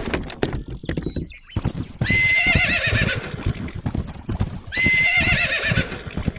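A horse whinnying twice, each call about a second long with a wavering pitch, over a steady run of hoof clip-clops.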